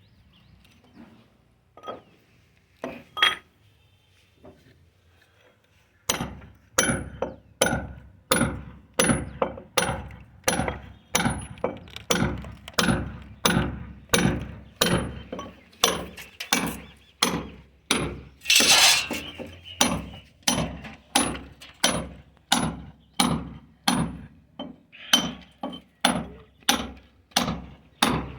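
Hand hammer striking a metal nail or chisel into a wall by hand, a steady run of blows about one and a half a second, each with a sharp metallic ring. Two single knocks come first, and a longer grating burst comes about two-thirds of the way through.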